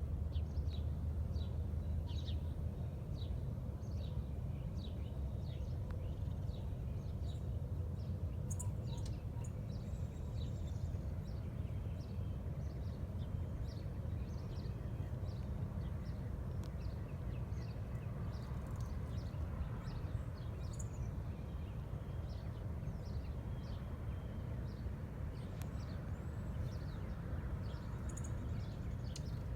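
Small birds chirping now and then over a steady low outdoor rumble.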